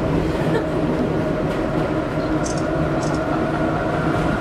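New York subway car running along the track, heard from inside the car: a steady rumble with a constant droning hum, and a couple of brief high clicks a little past the middle.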